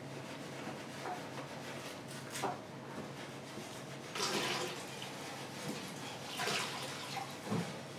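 Two short splashy rushes of water, as at a sushi counter's tap or hand-rinsing bowl, with a few light knocks between them over a low steady room hum.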